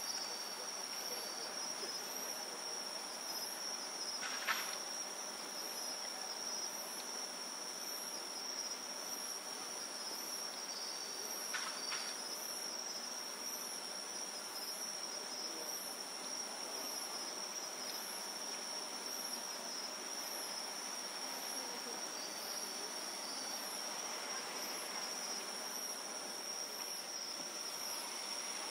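Crickets chirping steadily: a continuous high trill with a higher chirp pulsing about once a second. Two faint, brief reports from distant fireworks come through, about four seconds in and again near twelve seconds.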